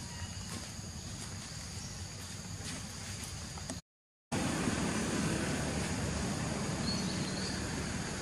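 Steady outdoor background noise: a low rumble and hiss with a faint, steady high whine over it. It cuts out for about half a second around four seconds in and comes back a little louder.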